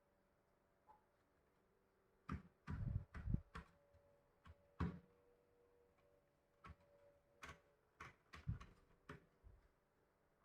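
Irregular clicks and knocks, as of a rechargeable portable camping fan being handled, over a faint steady hum.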